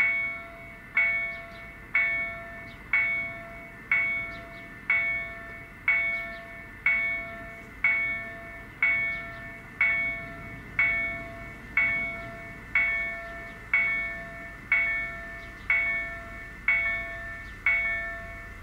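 Level crossing warning bell ringing about once a second, each strike a clear ding that dies away before the next, while the crossing's barriers are down and its red lights lit.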